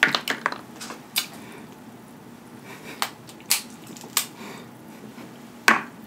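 Close-up eating sounds: wet mouth clicks and smacks from chewing crab meat, and snow crab leg shells snapping as they are broken apart by hand. The sounds come as a scattered series of short, sharp clicks and snaps.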